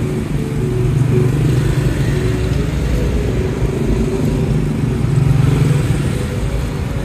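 A motor vehicle's engine running close by: a steady low hum with a slight wavering in pitch.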